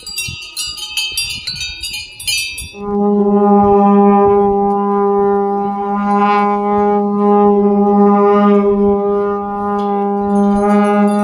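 Metal bells jingling and clanking for about the first three seconds, then a long straight Himalayan folk horn starts and holds one steady low note with a bright, buzzy overtone stack.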